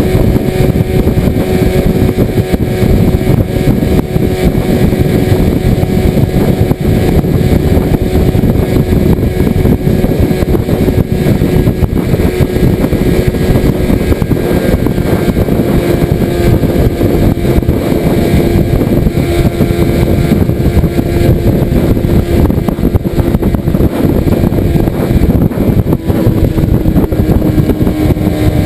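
Outboard motor running steadily, pushing a small aluminium skiff along under way: a loud, even drone that dips slightly in pitch near the end.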